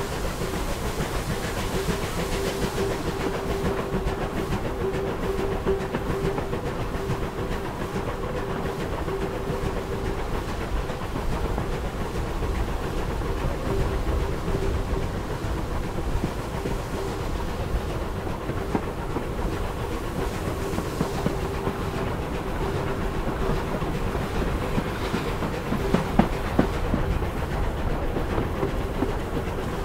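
Steam-hauled passenger train running at a measured pace behind Bulleid Battle of Britain class Pacific 34053, heard from the train: continuous rumble and clatter of wheels on rail with a steady hum, and a few sharper knocks near the end.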